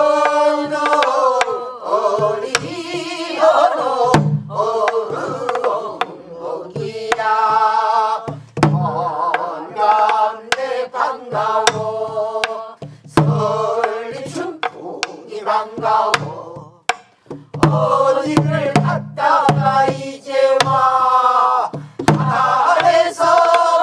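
A group singing a Korean southern (Namdo) folk song with wavering, ornamented voices, to a buk barrel drum struck with a stick: low thumps and sharp clicks keep the rhythm under the singing.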